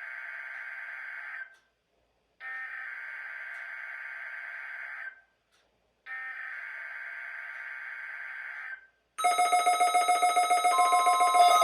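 NOAA Weather Radio SAME digital header for the Required Weekly Test: bursts of raspy data tones, three in all, each a few seconds long with about a second's pause between. Near the end a much louder, pulsing electronic alarm starts, and a second steady tone joins it.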